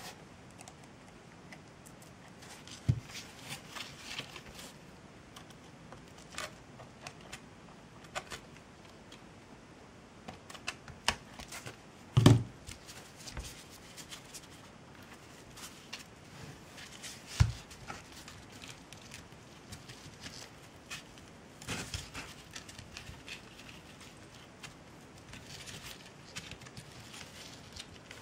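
Scattered small taps, clicks and rustles of hands handling jute-wrapped craft pieces while fitting and gluing a head onto a body, with a few louder knocks, the strongest about twelve seconds in and again near seventeen seconds.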